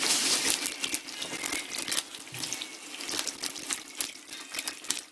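Hot oil sizzling and crackling as a flour-coated chicken piece goes into the pan to deep-fry. It is loudest as the piece goes in, then settles into a steady sizzle with many small pops.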